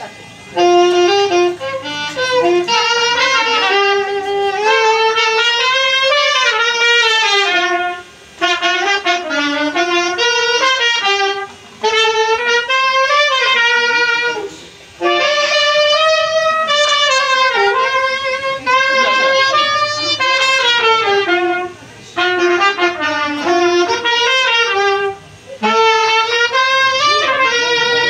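Instrumental music: a single melody line played in phrases a few seconds long, with short breaks between them.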